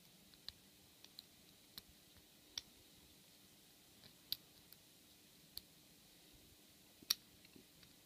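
Faint, irregular clicking of a lock pick and tension wrench single-pin picking the pin tumblers of a brass ABUS 82/90 padlock, as the pins are lifted and set one by one. About a dozen clicks, the sharpest about seven seconds in.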